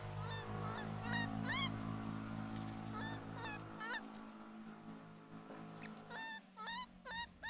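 Baby monkey giving short, high-pitched calls that bend and rise in pitch, in clusters: a run of about six in the first two seconds, three more around three seconds in, and another run near the end. A low steady hum lies under the first half and stops about four seconds in.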